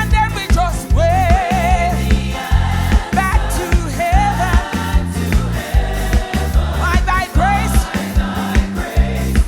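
Live gospel praise team singing a hymn in harmony, a lead voice with wide vibrato over a band with strong bass and steady drums.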